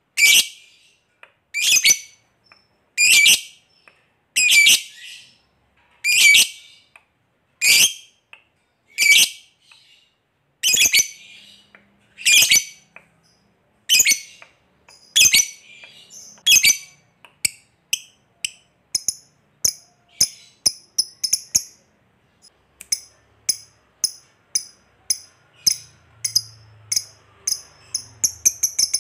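A lovebird gives loud, shrill single calls about every one and a half seconds. About two-thirds of the way through these give way to short, quick ticking chips, two or three a second, that speed up near the end: the 'koek' call moving into the 'ngetik' ticking that leads into a long chattering 'ngekek'.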